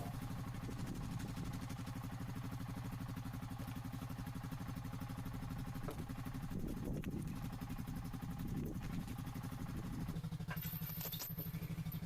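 A small engine running steadily, its pitch changing about ten seconds in.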